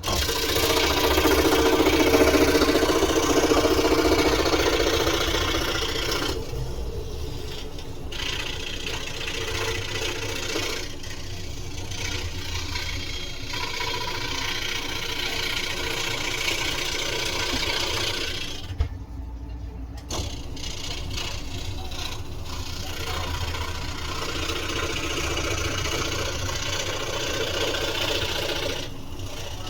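Electric sander running against a wooden scroll-saw cutout, starting abruptly and loudest over the first few seconds, then continuing with several brief drop-offs as it is lifted or shifted.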